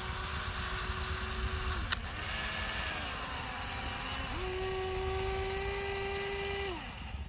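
Small electric motors of a radio-controlled model excavator or dump truck whining as they run, the pitch holding steady, dropping away and coming back up as the motor speeds up and slows down. There is a sharp click about two seconds in.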